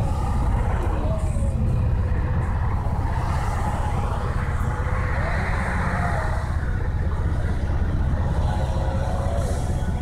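Truck-mounted crane's engine running steadily with a deep, even rumble. A rushing hiss swells and fades a few seconds in.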